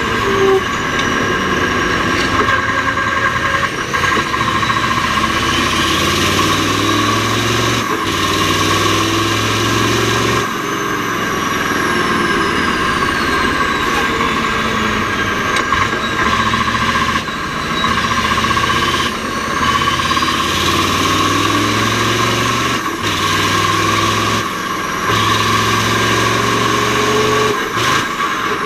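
Mack R-series truck's V8 diesel running hard under load, climbing in pitch through the gears of its Roadranger gearbox. The engine note breaks off briefly at each gear change, several times, and a steady high whine runs alongside.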